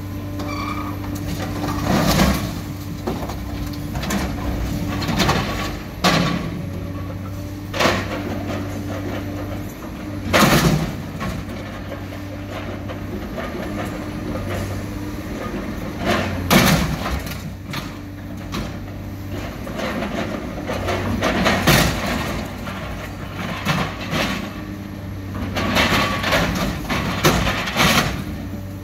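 Diesel engine of a wheeled material handler running steadily while its grapple tears at an armored truck's steel body. Loud metal crashes and crunches come every few seconds, with a cluster near the end.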